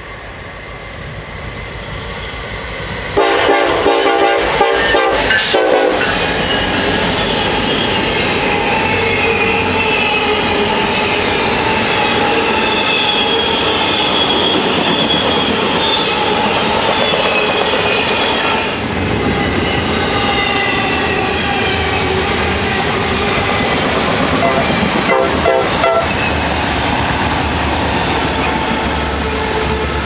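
Diesel freight locomotive air horns blasting loudly a few seconds in as the train reaches the camera. Then comes the steady rumble and clatter of a long double-stack intermodal train passing, with wheel squeal. Another short horn sounding comes near the end, and the low rumble of the trailing helper locomotives builds as they approach.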